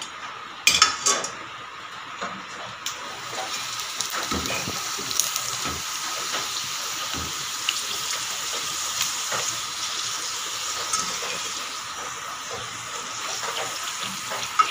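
Papad frying in hot oil in a kadai: steady sizzling and crackling as the wafer puffs under a wire skimmer, with a few sharp knocks about a second in.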